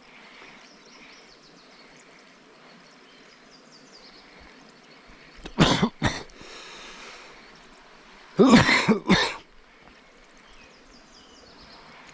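A man clearing his throat and coughing: two short bouts about three seconds apart, the second the louder and longer.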